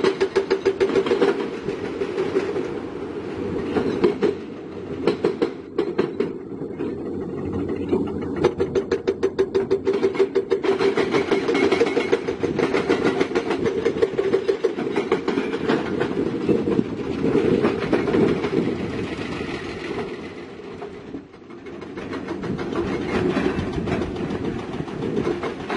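Heavy tracked construction machine working, its diesel engine running under a fast, rhythmic clatter of steel crawler tracks.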